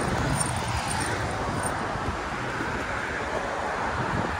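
Steady street noise of road traffic, with wind rumbling on the phone's microphone.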